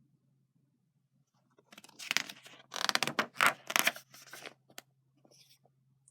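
Paper rustling and scraping in a series of rough bursts for about three seconds, over a faint steady low hum.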